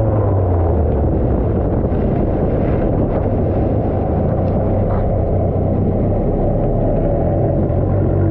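Nissan D21 pickup on the move, heard from under the truck beside the front suspension: its engine note sinks about a second in under a loud, steady rush of wind and road noise.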